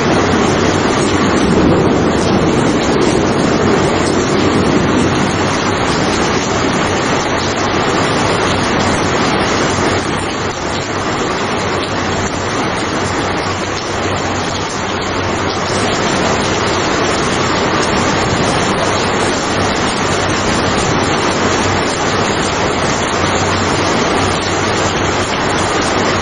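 Heavy, steady rain: a dense, even hiss with no separate drops standing out, and a deeper rumble in the first few seconds that fades away.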